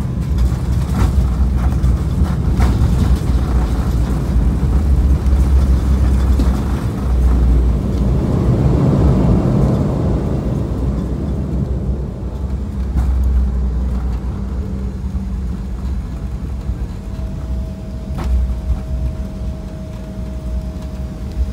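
Airliner cabin rumble during the landing rollout: wheels on the wet runway and engine noise, swelling about eight to ten seconds in, then easing as the plane slows. A steady whine comes in near the end.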